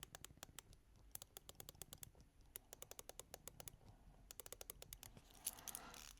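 Seiko SPB299 dive watch's rotating bezel being turned, giving faint quick clicks in runs of several a second, with a brief rub of handling near the end.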